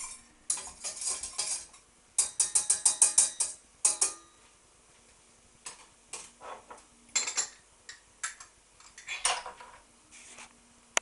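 A spoon stirring and scraping a flour-and-butter roux in a stainless steel saucepan, in quick runs of strokes over the first four seconds. After that come only scattered, fainter clicks and crackles while the roux cooks over the gas.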